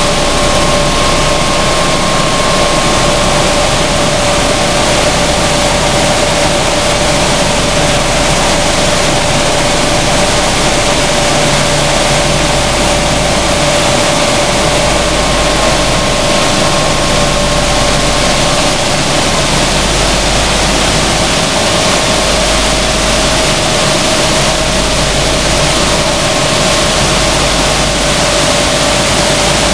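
Sunflower seed hulling machine running: a loud, steady mechanical noise with a constant hum.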